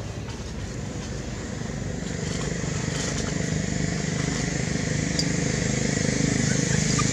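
A motor vehicle's engine running steadily, growing gradually louder.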